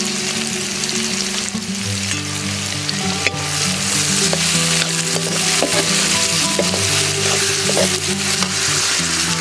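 Sliced onions and green chillies sizzling in hot oil in a kadai while a steel spoon stirs them, with one sharp click about three seconds in.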